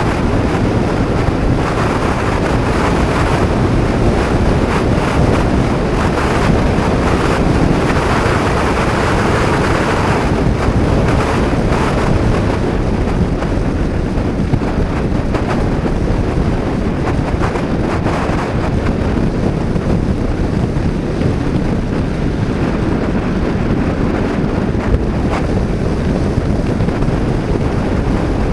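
Steady wind rush buffeting an action camera's microphone on a Honda PCX 125 scooter riding at road speed, with the scooter's running noise mixed in underneath.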